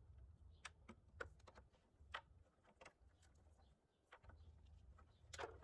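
Faint, scattered sharp clicks, about six spread over a few seconds, of plastic spark plug wire guides being unclipped by hand one by one.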